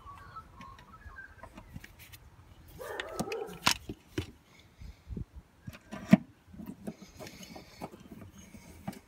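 Clicks and knocks of a hand pop-rivet gun being handled and fitted over a pop rivet on a metal relay mount, with one sharp metallic click about six seconds in. A brief pitched call sounds in the background about three seconds in.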